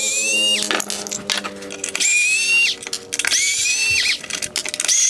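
Small cordless electric screwdriver whining in short bursts of under a second, about four times, each starting with a slight rise in pitch, as it backs out the T20 Torx screws holding a headlight's LED unit; small clicks between the bursts.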